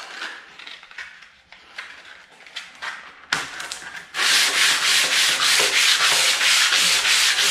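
120-grit sandpaper on a wooden block rubbed back and forth over the steel plate of an old Disston panel saw, sanding out scratches. A few light handling sounds come first; about four seconds in, steady rapid sanding strokes begin and carry on.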